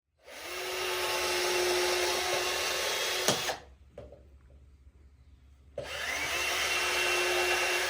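Power drill driving screws into a wooden 2x4 frame: two runs of about three seconds each with a steady motor whine, each ending in a sharp knock as the screw seats.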